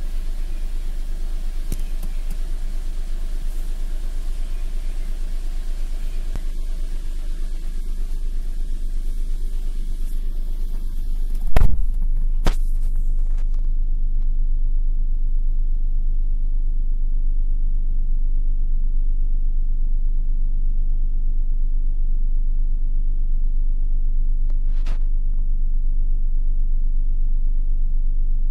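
Maruti Suzuki Alto K10's three-cylinder petrol engine idling steadily at a little over 1,000 rpm, heard from inside the cabin, warming up after a cold start with the accelerator untouched. About halfway through come two sharp knocks.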